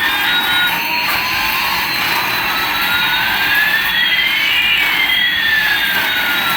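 Jet-engine-like noise with a whine rising and another falling, the two crossing about two thirds of the way through.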